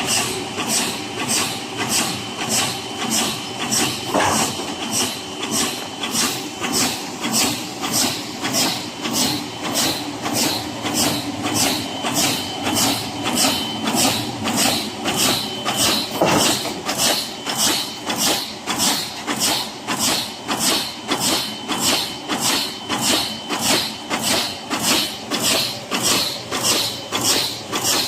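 High-speed fin press stamping aluminium heat-exchanger fin stock in a steady rhythm of about two strokes a second, over a faint continuous whine.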